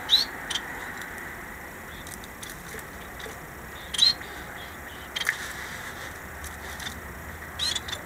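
Small caged finches giving short, sharp chirps every second or two, the loudest near the start and about four seconds in, over a steady faint hiss.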